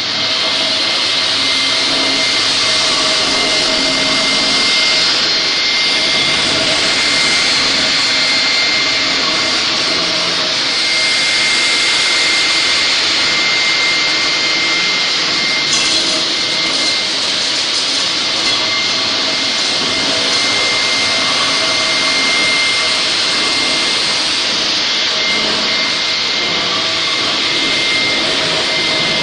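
Linax K-30ENV concrete floor grinder grinding a concrete floor, with its hose-connected dust collector running: a loud, steady machine noise with a constant high whine. A single short tick about halfway through.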